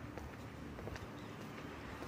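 A few soft footsteps on a hard tiled floor over a low steady background hum.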